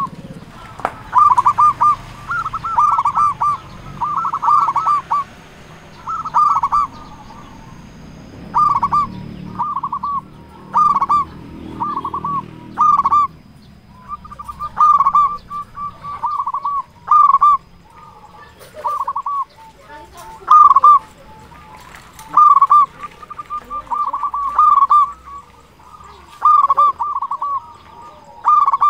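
Zebra dove (perkutut) cooing over and over: quick clusters of short coo notes, repeated every second or two.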